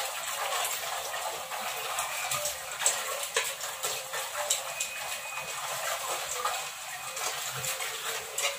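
Tap water running into a metal rice pot being scrubbed and rinsed by hand with plain water, with frequent small clicks and knocks of the pot against the sink.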